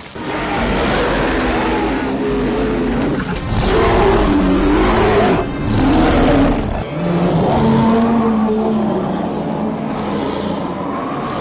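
Film sound effects of a bear roaring: several long, wavering roars one after another over a low rumble.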